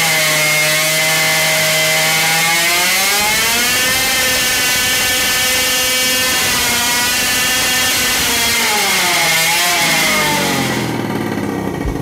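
Supercharged 50cc two-stroke engine running hard on a dyno at roughly ten to thirteen thousand rpm. Its pitch climbs a few seconds in, holds, then falls and wavers. It winds down and fades out near the end, with a couple of knocks as it stops.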